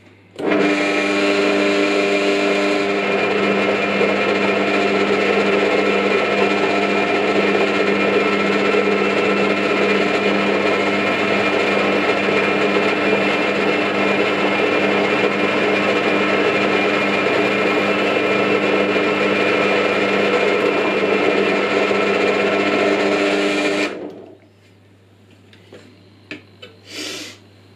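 Parkside PTBM 500 ES bench drill press switched on and running at steady speed while a pilot hole is drilled in a metal strip, switched off after about 23 seconds. A few light clicks follow near the end as the plastic chuck guard is handled.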